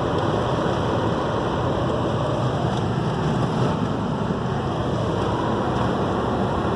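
Strong storm wind rushing in a long, steady gust.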